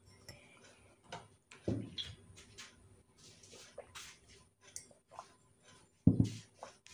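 Close-miked eating sounds: chewing and small crunchy clicks with utensil taps, broken by two heavier low thumps, the louder one about six seconds in.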